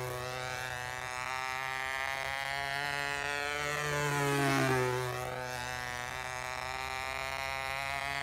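Radio-controlled model airplane's engine and propeller droning as it flies low passes. The drone swells and drops in pitch as the plane goes by about halfway through, then starts to fall again near the end.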